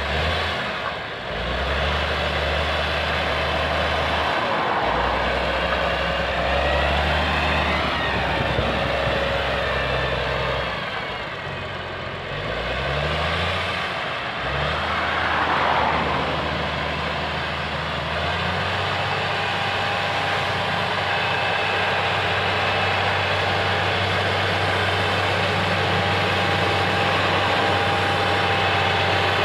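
Komatsu GD705A motor grader's diesel engine running as it grades with its blade down. Its pitch shifts up and down through the first half, then holds steady, and a steady whine joins in about two-thirds of the way through.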